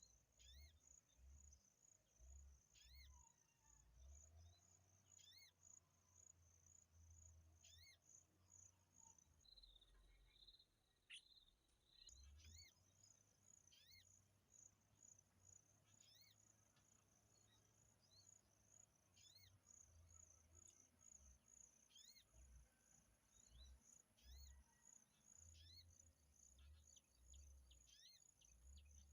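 Quiet natural ambience: an insect chirps in a fast, steady, high-pitched pulse that stops for a couple of seconds midway, while a bird gives short falling call notes every second or two. Low rumbles come and go underneath.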